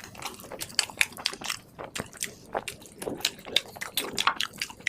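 Close-miked chewing of a mouthful of food: irregular wet smacks and mouth clicks, several a second.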